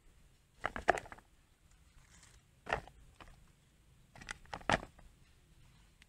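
Eggplants being set into a plastic basket: short knocks and rustles of the fruit against the basket and each other, in bunches about a second in, near three seconds and just before five seconds.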